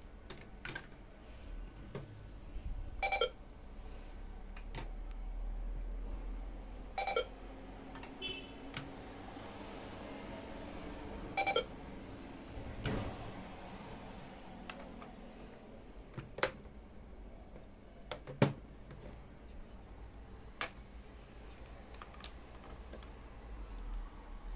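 Toy cash register's handheld scanner beeping three times in the first half, short electronic beeps. Around them come light clicks and knocks of plastic play food and a plastic shopping basket being handled, with one sharp plastic knock about three quarters of the way through the loudest of all.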